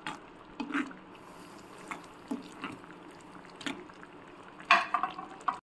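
A metal spoon stirring noodles in broth in a kadai, with scattered clinks and scrapes of the spoon against the pan and a louder clatter near the end.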